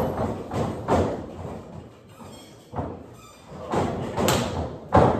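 A series of irregular thuds and knocks, several sharp hits spread unevenly, with the strongest near the end.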